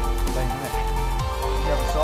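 Background electronic music with held synth tones and a deep bass, with low thuds that drop in pitch.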